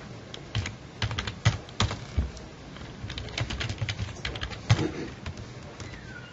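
Typing on a computer keyboard: irregular runs of key clicks.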